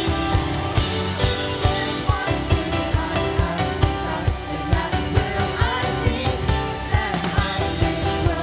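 Live worship band playing a song in a rock style: drum kit keeping a steady beat under guitars, with voices singing.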